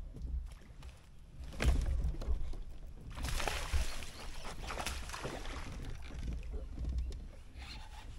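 Water splashing as a fish strikes a topwater lure and is fought toward the kayak, with a sharp splash about one and a half seconds in and more thrashing from about three seconds on.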